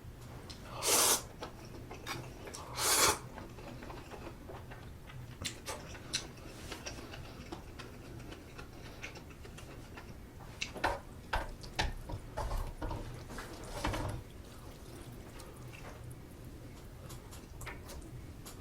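Close-up eating sounds from a bowl of spicy sausage stew. There are two short, loud wet slurps in the first few seconds, then scattered small clicks and wet chewing noises.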